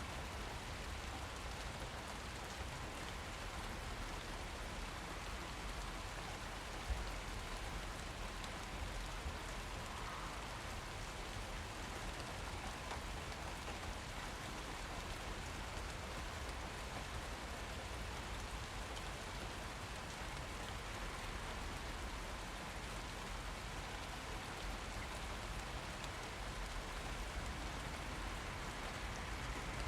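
Steady rain falling and pattering on surfaces, with a few louder drops now and then.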